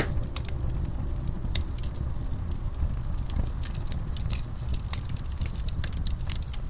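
Wood fire in a fireplace crackling: scattered sharp pops over a steady low rumble, with one louder pop at the very start.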